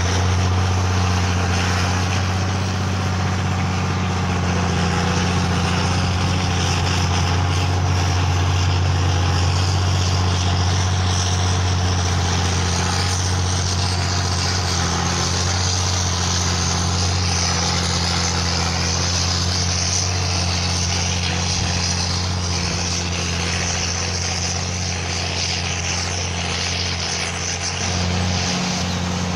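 Oliver 1855 tractor's six-cylinder turbo diesel running steadily: a deep, even drone with a dense rush of engine noise over it.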